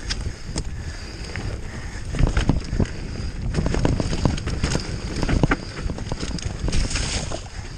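Mountain bike riding fast down a dry dirt forest trail: tyres rumbling over the dirt and roots, with many irregular knocks and rattles from the bike as it takes the bumps, over a steady rush of air noise.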